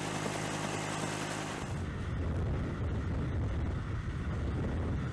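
Helicopter rotor and engine noise, steady and droning. About a second and a half in it changes to a deeper, heavier rumble with the upper hiss dropping away, as heard from inside the helicopter's cabin by the open door.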